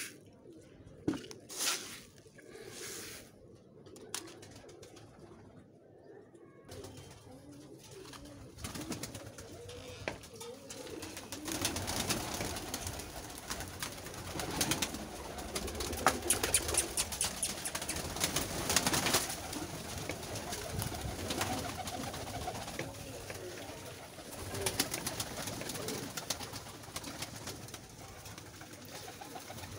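A flock of domestic pigeons cooing in a small loft. From about ten seconds in it grows louder, with a dense patter of clicks as the birds peck and jostle at their food.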